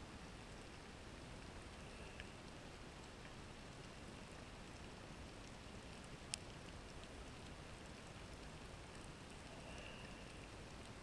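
Faint underwater reef ambience: a steady hiss with sparse faint clicks and one sharper click about six seconds in.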